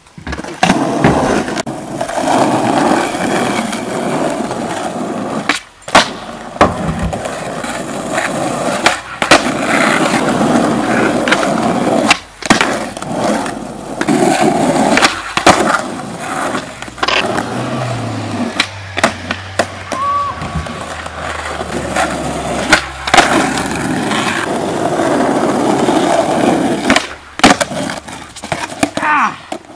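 Skateboard rolling on rough asphalt, its wheels rumbling, broken many times by sharp clacks of the tail popping and the board slapping and clattering on the ground as tricks are tried and missed.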